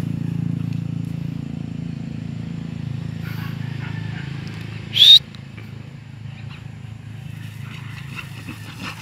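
Low drone of a motor vehicle's engine, fading steadily as it moves away. About five seconds in, a single short, high-pitched cry that rises sharply in pitch is the loudest sound.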